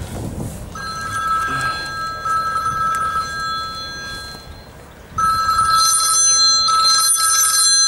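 A phone ringing with a trilling bell-like ringtone: two rings, then a pause, then two more rings, much louder, from about five seconds in.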